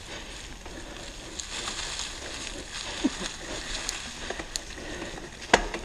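Mountain bike rolling down a dirt trail covered in dry leaves: steady tyre and trail noise with scattered clicks and rattles from the bike, and one sharp knock about five and a half seconds in.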